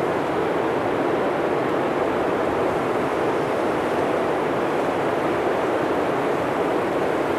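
Steady rushing noise, even and unchanging, with no speech or music.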